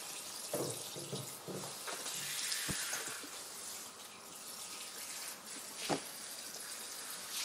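Salon shampoo-basin hand sprayer running water onto long hair in the basin, a steady hiss of spraying water, with a sharp knock about six seconds in.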